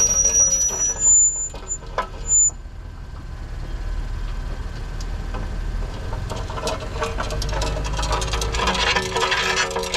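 Rear disc brake of a 2024 Acura MDX making a few brief high-pitched squeals in the first couple of seconds, then a rough scraping that grows louder near the end, over a low rumble. The owner suspects a stone caught in the brake.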